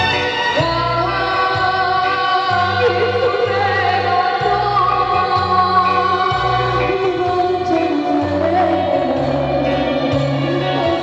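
A woman sings a slow song live into a microphone over electronic keyboard accompaniment. Her long held notes sit over a bass line that changes note about once a second.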